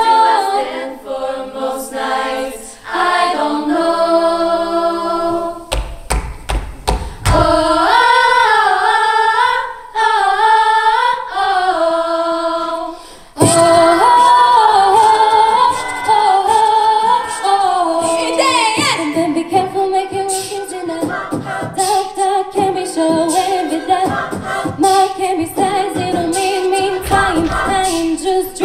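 A cappella vocal group singing wordless harmonies in several parts through microphones. About halfway in the sound turns suddenly louder and fuller, with vocal percussion beats under the voices.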